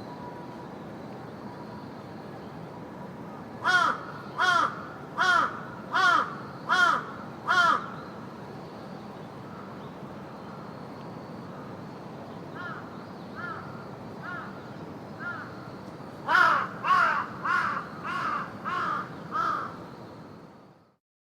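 Ravens cawing in runs of harsh, evenly spaced calls: six loud calls about four seconds in, four fainter ones midway, then a loud run of about eight near the end. Under them is a steady park background hiss, and everything fades out at the very end.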